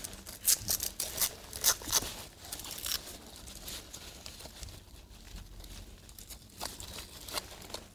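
Tent rain-fly fabric crinkling and crackling as hands work it and fasten its Velcro tabs around the fly rods. The crackles come thickly in the first three seconds, then thin out, with a few more near the end.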